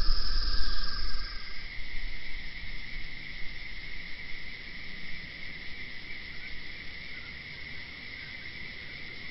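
Steady high-pitched tone over a soft hiss, with a low rumble that fades away in the first couple of seconds, leaving the tone alone and quieter.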